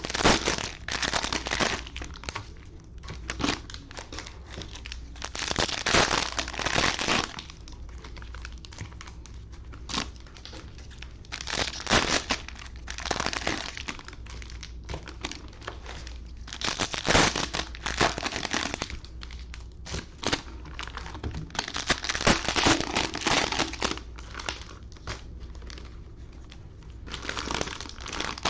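Cellophane wrappers of trading card packs crinkling and tearing in irregular bursts as the packs are handled and opened.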